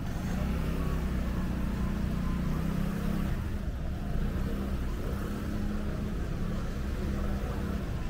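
Motor vehicle engine running close by, a steady low hum over city street noise.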